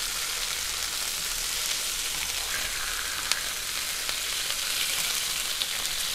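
Thin slices of meat sizzling steadily in hot ghee in a frying pan as they are turned, with a couple of light clicks of the utensil against the pan.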